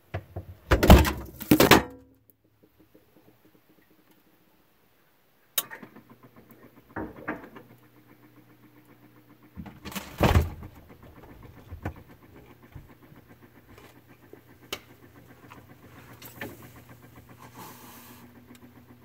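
Knocks and clattering of a refrigerator door and the items on its shelves being handled. The loudest clatter comes about a second in and another about ten seconds in, with scattered lighter clicks and a low steady hum between them.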